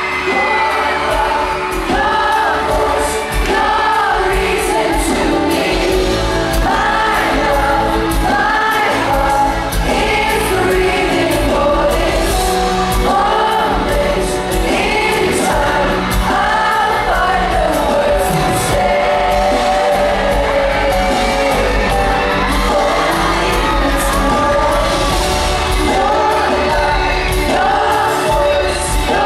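Boy band singing a pop song live, several voices over the backing band through an arena sound system, recorded from the audience.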